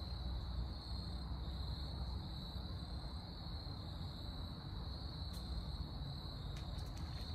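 Steady insect chorus, one unbroken high-pitched trill, over a low rumble, with a few faint ticks near the end.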